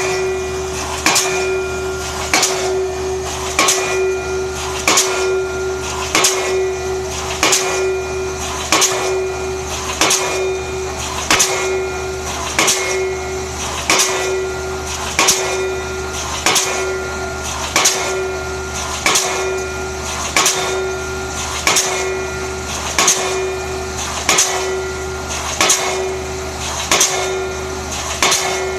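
APE D19 diesel pile hammer driving a pile, striking in a steady rhythm of about one blow every 1.4 seconds, over a continuous steady hum.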